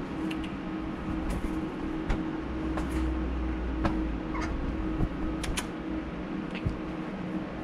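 Steady low hum with a held tone, with about nine light clicks and taps scattered through it.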